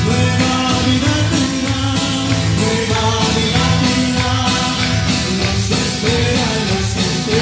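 Loud, continuous praise music from a band, with guitar and a sung melody.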